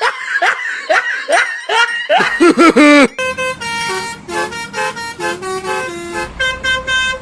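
Quick rising-and-falling laughter-like voice sounds for about three seconds, then a Basuri 'telolet' bus horn playing a tune in steady stepped notes.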